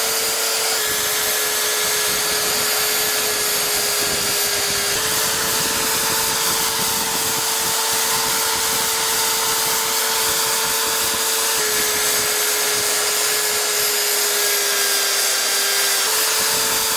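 Electric drill motor running steadily with a whining hum and a hiss. Its pitch steps slightly up and down a few times.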